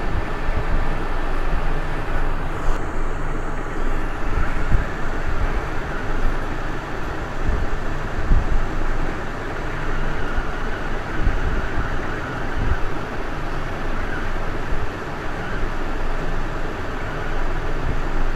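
Hot air rework station blowing on a small voltage regulator chip: a steady rush of air with an uneven low rumble.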